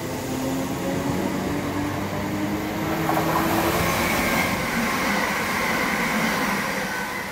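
Electric multiple-unit passenger trains running through the station at speed: steel wheels on rail with a motor whine that drops slightly in pitch as the first train goes by, then the rush of a second train passing from about three seconds in, with a high steady whine over it.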